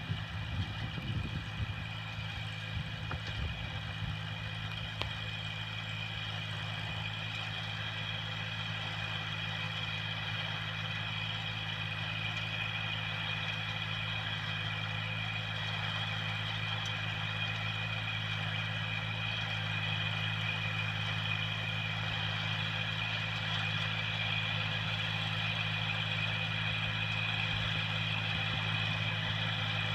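Farm tractor engine running steadily while it pulls a rotary tiller through the soil. The even engine hum grows slowly louder.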